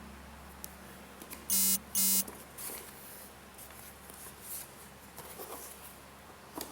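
Two short, buzzy electronic beeps in quick succession about a second and a half in, followed by faint rustling and a few light clicks.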